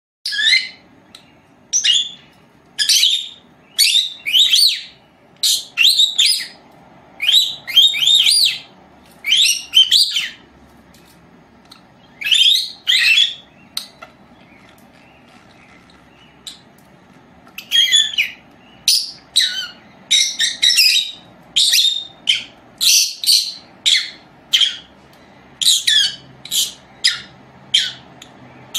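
Lovebird calling: sharp, high-pitched chirps in quick clusters of a few at a time, with a pause of a few seconds about halfway through.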